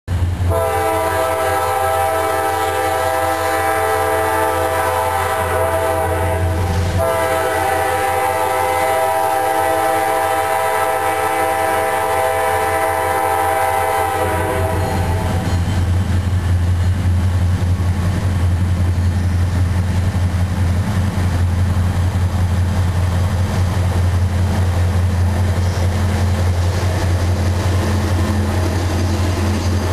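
A Norfolk Southern GE C40-9W diesel locomotive sounds two long air-horn blasts, the second ending about halfway through. After that come the steady low engine drone and rolling rumble of the lead locomotives as the freight train draws up and passes.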